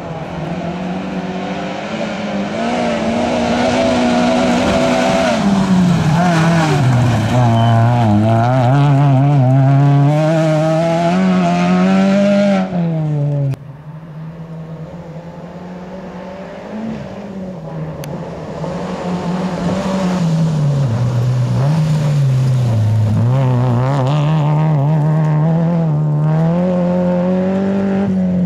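Two rally cars in turn driving hard along a gravel stage, with a sudden break between them about halfway through. Each car's engine pitch climbs and drops back again and again as it accelerates and changes gear.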